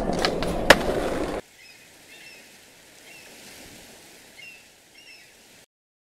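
Skateboard wheels rolling on a hard floor, with two sharp clicks, cutting off suddenly about a second and a half in. Then a quiet outdoor background with a few faint bird chirps, until the sound drops out near the end.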